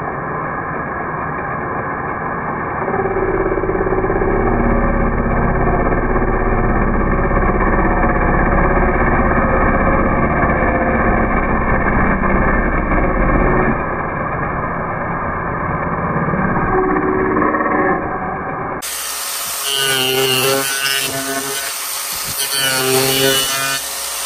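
Angle grinder fitted with a chainsaw-chain wood-carving disc, running and cutting notches into a wooden board. The motor note rises and falls as the chain bites into the wood. About three-quarters of the way through, the sound abruptly turns brighter and sharper.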